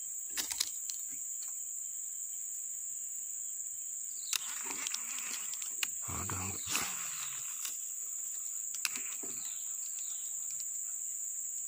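Steady, high-pitched insect drone from the swamp, like crickets or cicadas, with a few short clicks and rustles over it.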